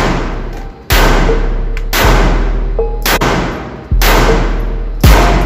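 A 9mm Glock 19 Gen 5 pistol fired five times at a slow, steady pace, about a second apart. Each shot is a sharp crack that rings on and fades in the indoor range.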